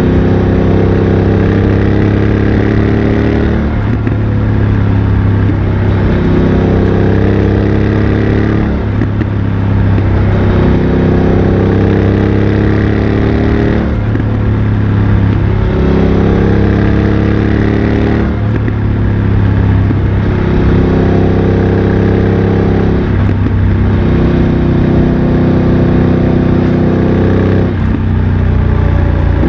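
BMW F900 XR's parallel-twin engine through a MIVV X-M1 aftermarket exhaust, pulling under load with its pitch climbing, cut by brief gear changes about every four to five seconds.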